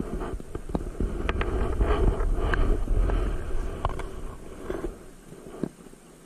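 Wind buffeting the microphone of a boat-mounted action camera, a low rumble that swells and then fades, with scattered light clicks and knocks from fishing tackle and the wooden outrigger boat.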